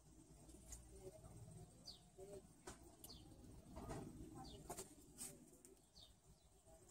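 Faint background birdsong: short, high, falling chirps every second or so, with soft low cooing like a dove and a few soft ticks.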